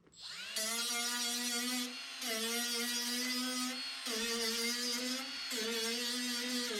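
A handheld electric power tool spins up, then runs with a steady whine and hiss. Its pitch and level dip briefly three times, as the tool takes load working sheet steel.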